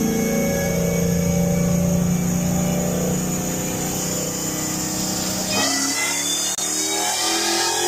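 Hellcat's supercharged 6.2-litre Hemi V8, fitted with a 3.8-litre Whipple blower, running on a chassis dyno. It holds a steady drone that sags slightly in pitch. About five and a half seconds in the sound changes abruptly and the engine note climbs in steps, as under hard acceleration.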